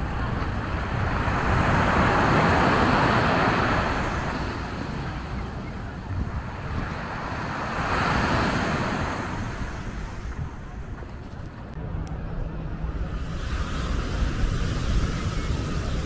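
Sea surf breaking on a sandy beach: two waves swell and wash in about six seconds apart, then the surf eases. Wind rumbles on the microphone underneath.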